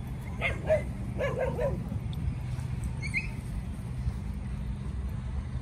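Dogs playing tug-of-war over a leash: a quick run of short yips and barks in the first two seconds, then a single brief high-pitched yelp about three seconds in.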